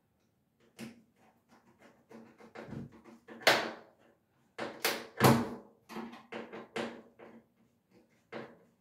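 Metal mounting clips being fitted and tightened against the rim of a stainless steel drop-in sink: a run of irregular scrapes and clicks, loudest about three and a half and five seconds in.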